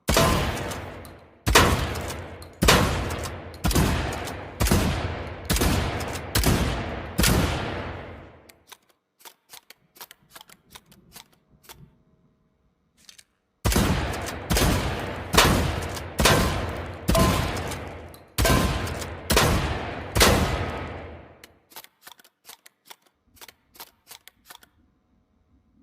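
Mossberg 500 Cruiser pump-action shotgun firing two strings of eight shots, roughly one shot a second, each shot dying away in a long echoing tail. Between the two strings, and after the second, come faint light clicks and rattles.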